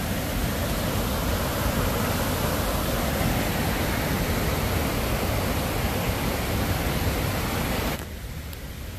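Dingmans Falls waterfall rushing steadily. About eight seconds in, the sound drops abruptly to a quieter, thinner rush.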